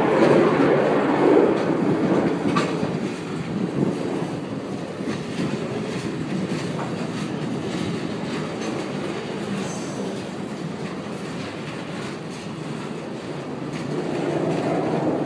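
Freight train's aggregate hopper cars rolling past, a steady rumble of steel wheels on the rails with a few sharp clicks; louder at the start, easing off, then swelling again near the end.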